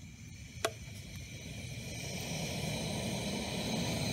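A pot of water heating on a camp stove: the burner's steady hiss and rumble, growing louder as it goes, with one sharp click about half a second in.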